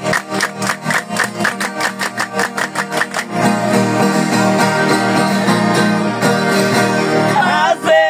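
Catira dancers clapping their hands in a fast, even rhythm over a strummed viola caipira. The clapping stops about three seconds in, leaving the viola, and a man's singing voice comes in near the end.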